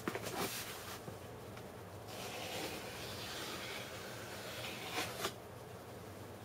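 Cardboard shipping box being handled and opened by hand: a few knocks as it is picked up, a stretch of scraping and tearing in the middle, then two sharp knocks near the end.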